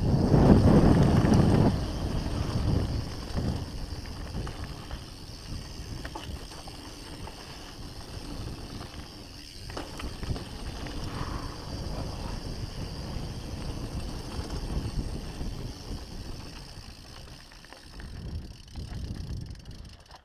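Hardtail dirt-jump bike (Norco One25) descending a dirt and gravel trail: tyres rolling and rumbling over the rough surface, with wind on the microphone. Loudest in the first couple of seconds, then quieter, and dropping off near the end.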